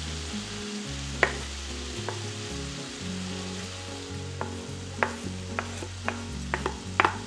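Chicken and tomato sizzling in a frying pan as sliced bell peppers are pushed off a wooden cutting board into it, with sharp knocks of wood against the board and pan, once early and in a quick cluster toward the end.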